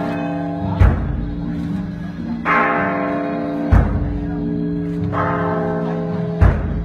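A large temple bell and a big ceremonial drum struck in turn, each about every three seconds. Each bell stroke rings on in long steady tones. Three heavy drum beats fall between the bell strokes.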